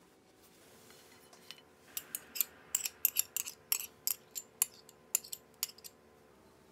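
A metal spoon clinking and scraping against a small glass bowl while scooping out thick mayo-style sauce, a quick irregular run of sharp clicks through the middle few seconds.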